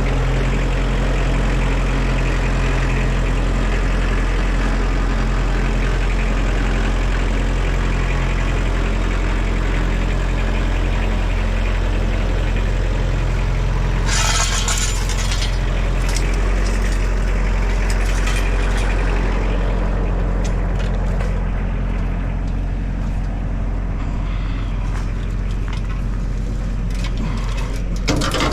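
Tractor diesel engine running steadily at a low, even pitch. About halfway through there is a brief burst of hissing, rattling noise, followed by a few scattered clicks.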